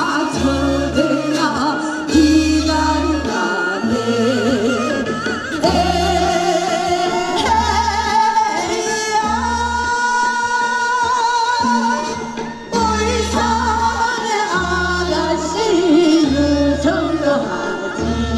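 Women singing Korean folk songs (minyo) in a medley through microphones, over amplified instrumental accompaniment with a bass line in long repeated notes.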